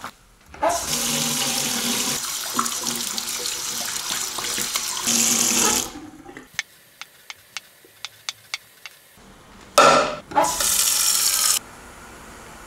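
Water running from a kitchen sink tap for about five seconds, then a string of about eight light clicks, then the tap running again for about two seconds. A faint steady hiss follows near the end.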